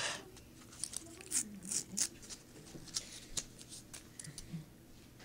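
Paper wrapper of a roll of half-dollar coins being torn open, with a scatter of short crinkles and clicks as the coins are handled.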